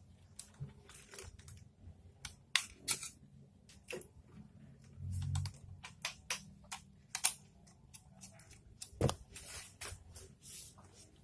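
Irregular plastic clicks and rattles as a monopod's serrated plastic adapter is handled and fitted onto it by hand. There is a dull thump about five seconds in and a sharper knock about nine seconds in.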